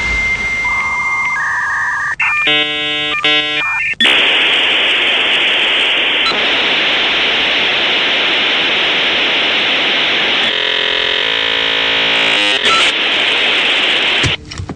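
Dial-up modem handshake while connecting to the internet: a steady high beep and paired tones, then two quick bursts of many tones at once, then about ten seconds of loud hissing static with more tones sounding through it for a couple of seconds, cutting off near the end.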